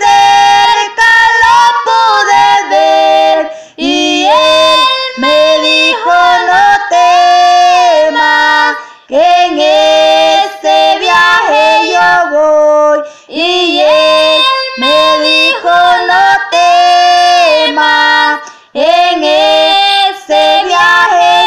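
A high solo voice singing a Spanish-language praise song, in phrases of long held and sliding notes with short breaths between them.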